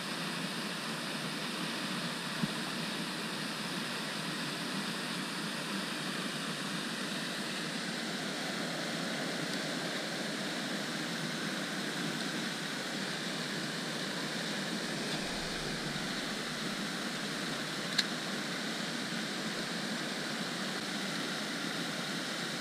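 Steady rushing hiss of water from the pond's spray fountains, with one sharp click about eighteen seconds in.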